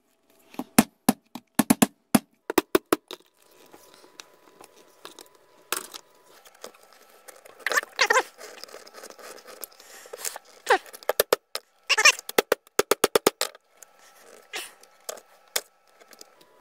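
Plastic dome of a cheap LED bulb being pried and worked loose from its glued base with a screwdriver and a metal blade: clusters of sharp clicks and knocks, with scrapes between them.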